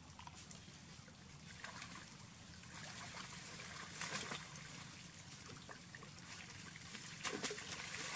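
River water splashing and lapping as macaques swim and jump in, with a few sharper splashes about four seconds in and again near the end.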